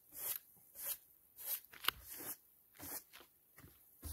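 Hand brush sweeping straw debris off the roof surface in short scratchy strokes, about two a second.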